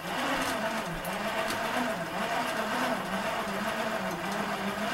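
Feelfree Overdrive kayak pedal drive being pedaled out of the water, its drive running with a steady whirr and a low hum that wavers up and down in pitch about once a second. The card table it is held on is reverberating with the vibrations, in an echoey room that makes it sound louder.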